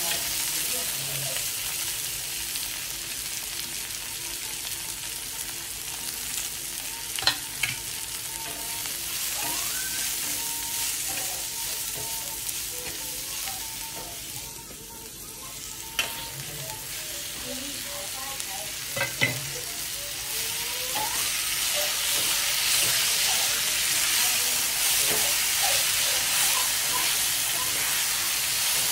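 Onion and tomato, then mashed roasted brinjal, sizzling on a hot iron tawa while a metal spatula stirs and scrapes. A few sharp clacks of the spatula against the pan come in the middle, and the sizzle grows louder in the last third.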